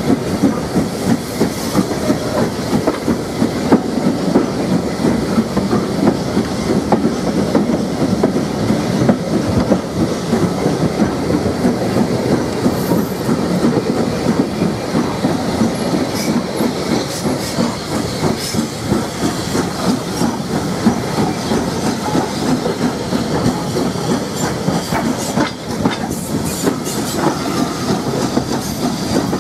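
Carriage wheels running along the track: a steady rumble with rhythmic clickety-clack, and a few sharper clicks near the end as the train runs over points.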